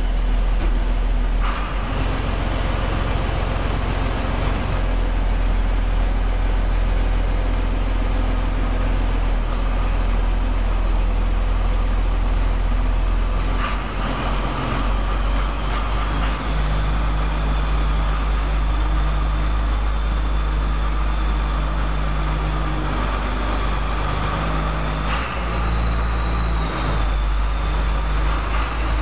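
Diesel engine of a large John Deere four-wheel-drive tractor running steadily as the tractor moves slowly, a deep continuous rumble with three brief clunks.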